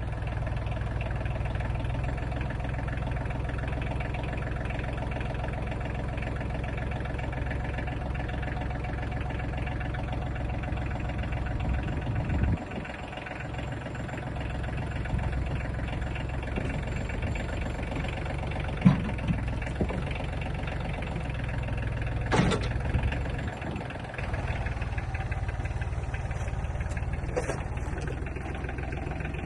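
Small 35-horsepower tractor's engine running steadily, with a brief dip about twelve seconds in and a few sharp knocks past the middle.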